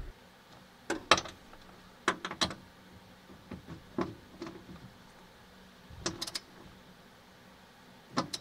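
Torque wrench on the rear strut's top mounting nuts, clicking in short clusters every second or two as the nuts are tightened down. The loudest clicks come about a second in.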